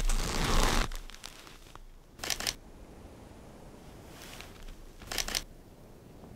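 Footsteps crunching in deep snow, stopping about a second in, then two short crunches or rustles of snow and clothing as the walker stands still.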